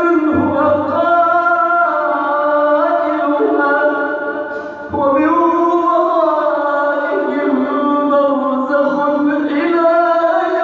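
A man's voice reciting the Quran in melodic chant, drawing out long held notes that glide slowly up and down, with a short break for breath about five seconds in.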